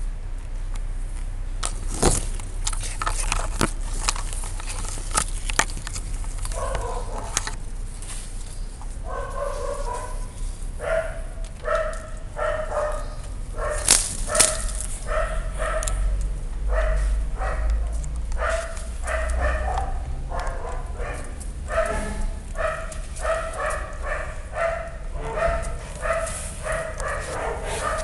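A small dog barking over and over in short, high yaps, about two a second, beginning a few seconds in and then keeping up steadily. A sharp click stands out about two seconds in and another around the middle, over a low rumble.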